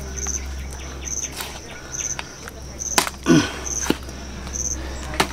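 Large knife chopping through a goonch catfish's head into a wooden block: two sharp chops, about three seconds in and near the end, the first followed by a brief vocal sound. A short high insect chirp repeats about once a second.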